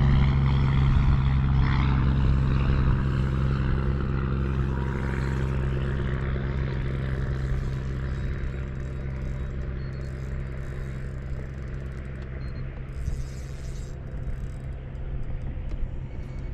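Steady low drone of a boat engine running at an even pitch, slowly fading.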